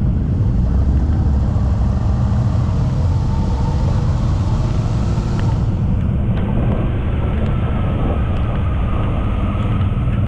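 Motorcycle under way at a steady speed: a continuous low engine and road drone with a rush of wind noise over it. The high hiss drops away about six seconds in.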